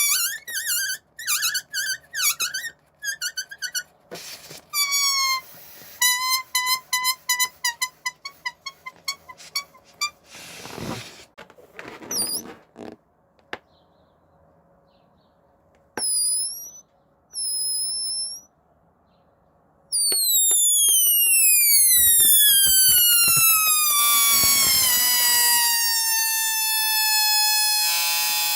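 Balloons squealing as the air is let out through a neck stretched tight. At first it comes in quick bursts of wavering squeaks, with a breathy rush of air around the middle, then one long squeal that slides steadily down in pitch.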